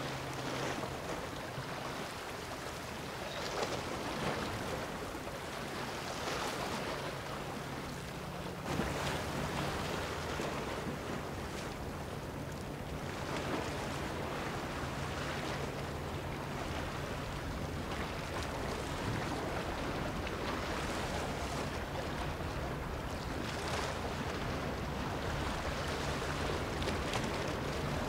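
A large motor yacht's engines giving a steady low hum under rushing water from its bow wave and the sea, with wind buffeting the microphone. The hum and water get louder about nine seconds in.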